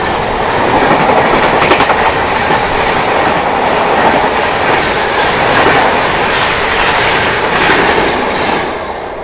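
A passenger train, the Howrah Rajdhani, rushing past close by at speed, its coach wheels clacking over the rail joints amid loud rushing noise. The noise drops away near the end as the last coaches go by.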